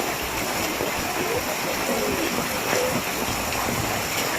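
Heavy rain pouring down in a steady, even hiss, with faint voices in the background.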